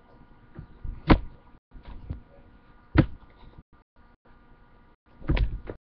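Three dull knocks or bumps about two seconds apart, the last a short cluster of knocks, over a faint steady electrical hum.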